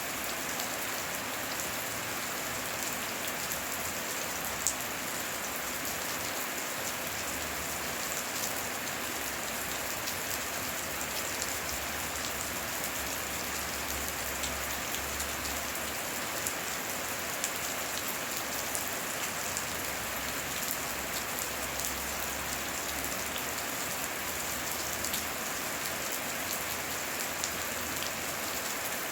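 Heavy rain falling steadily, an even hiss scattered with many sharp, separate drop impacts.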